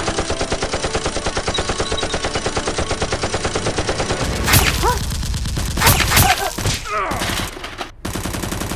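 Automatic gunfire sound effect laid over a Nerf blaster being fired: a rapid, even burst of about six shots a second lasting some four and a half seconds, then a few louder single hits with short swooping tones.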